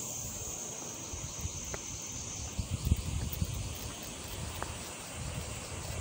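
Cicadas singing, a steady high buzz that fades out about halfway through, over low, irregular gusts of wind buffeting the microphone.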